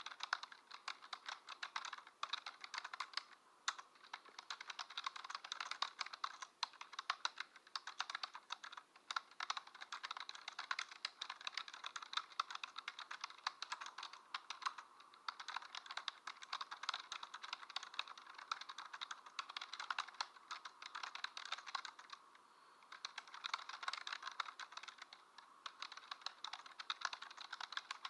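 Typing on a computer keyboard: a fast, continuous clatter of key clicks that breaks off briefly about 22 seconds in, then resumes.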